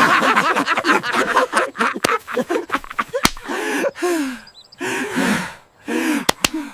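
A few short vocal calls, each arching up and falling in pitch, after a busy noisy stretch, with several sharp slaps or clicks.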